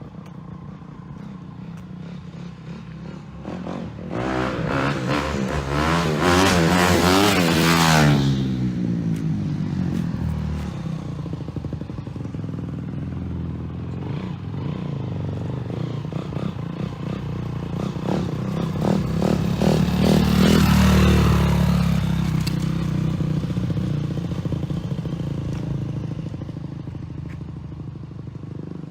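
A motor vehicle's engine runs steadily while driving. It rises in two louder surges, one a few seconds in and another about two-thirds of the way through, each with a swooping, gliding pitch.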